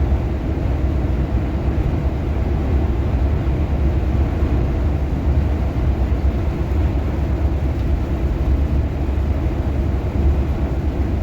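Steady low rumble of a moving vehicle heard from inside it, mostly deep bass, unchanging throughout.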